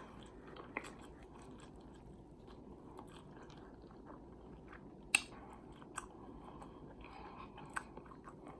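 Person chewing a mouthful of barbecued beef short rib: soft mouth sounds with a few short clicks, the sharpest about five seconds in.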